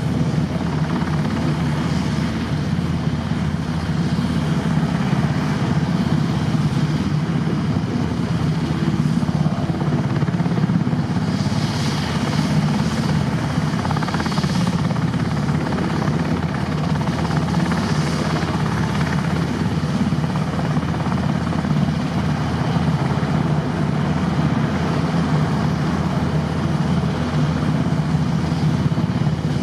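NH90 helicopter hovering low, its main rotor beating rapidly over the steady run of its twin turboshaft engines.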